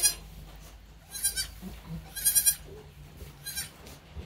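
Newborn goat kids bleating: four short, high-pitched bleats about a second apart.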